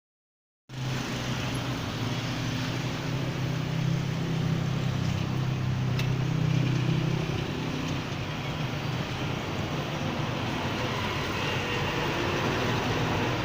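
Boeing 777-200 jet engines running, heard from outside as a steady rumble and roar with a low hum that is strongest in the first half. The sound cuts in abruptly from silence just after the start.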